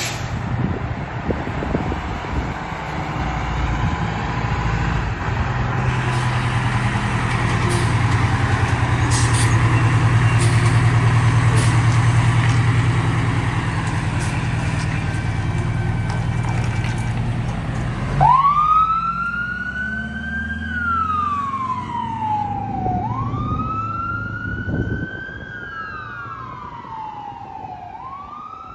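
A 1992 Seagrave fire engine's diesel engine running hard as the engine pulls out and away, with a few short sharp hisses over it. About two-thirds of the way in its siren starts wailing, rising quickly in pitch and falling more slowly, three times over.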